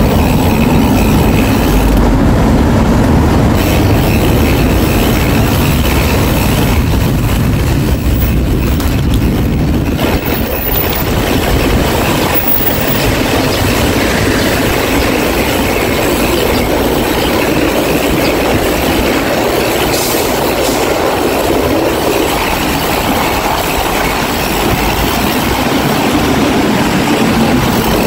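Steady, loud city road traffic: cars and city buses running past close by, a continuous rumble and tyre noise.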